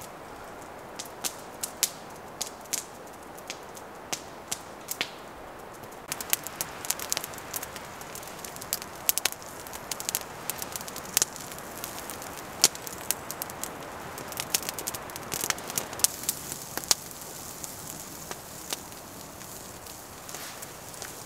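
Open wood campfire crackling, with sharp irregular pops over a steady low rush of the flames; the pops come thickest in the middle stretch.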